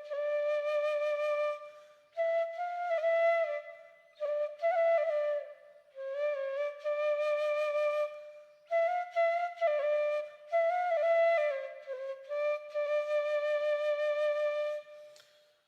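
Background music: a solo flute melody played in short phrases of a second or two, separated by brief pauses.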